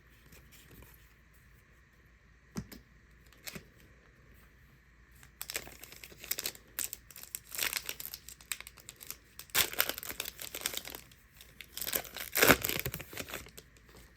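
Packaging from Donruss card blasters being crinkled and torn open by hand. Two light clicks come first, then from about five seconds in a run of loud crinkling and tearing, loudest near the end.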